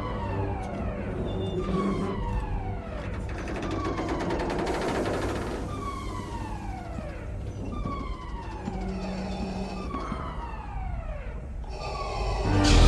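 Electronic falling tone, a siren-like synth sweep dropping in pitch, repeated about once a second over low held notes.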